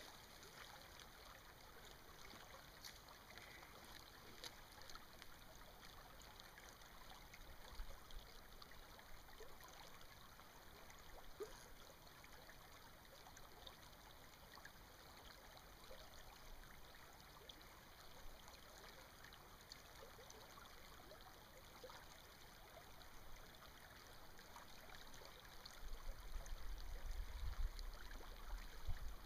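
Faint, steady flow of a small stream, water trickling and lapping over stones, with small ticks and splashes. A low rumble comes in near the end.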